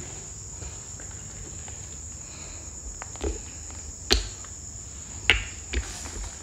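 Steady high chirring of crickets, with a few sharp footsteps on a floor littered with broken tiles and rubble in the second half, two of them loud.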